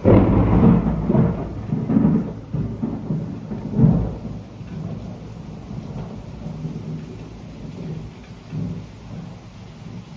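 Thunder during a rainstorm: a sudden clap, then a low rumble for several seconds that swells again about two and four seconds in and slowly fades, over steady rainfall.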